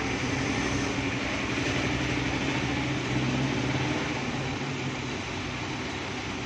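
A steady mechanical hum with an even rushing noise behind it, easing slightly in the second half.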